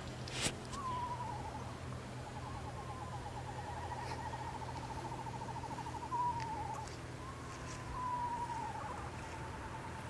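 Eastern screech owl giving its long, even trill: a fast run of soft notes on one pitch that carries on almost without a break from about a second in, dipping slightly in pitch a few times. A brief click comes just before the trill starts.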